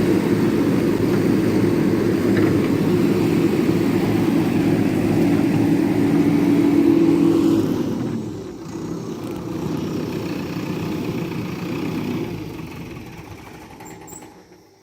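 A JCB backhoe loader's diesel engine runs hard with a steady drone. About eight seconds in it eases off to a lower, steadier note, then dies away near the end.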